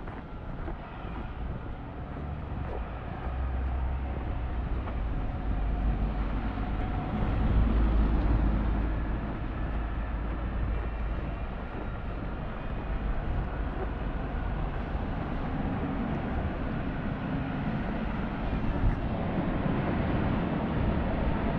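Low rumble of passing street traffic, swelling to its loudest as a vehicle goes by about seven to nine seconds in.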